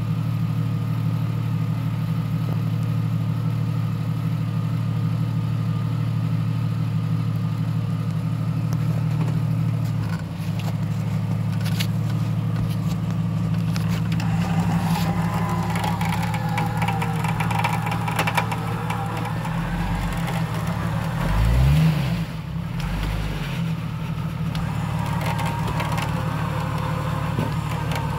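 Lifted Jeep Cherokee XJ's engine running steadily as it crawls out of a snowy, icy hole, with a brief rise in revs about three-quarters of the way through.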